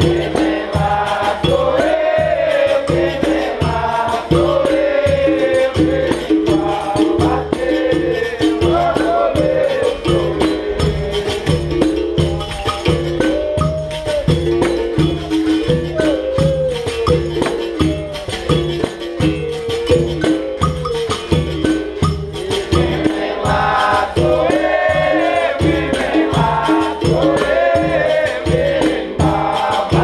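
Capoeira angola roda music: voices singing over the bateria's steady drum beat, about two strokes a second, with jingling and rattling hand percussion.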